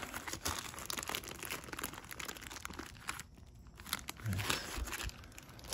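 Clear plastic zip bags of motorcycle hardware crinkling and rustling as they are handled, with a short pause about three seconds in.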